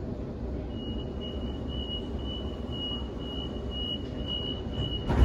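Waratah train's door-closing warning: a high beeping tone pulsing about twice a second, with a loud thump near the end as the doors shut. Under it, the steady hum of the standing train.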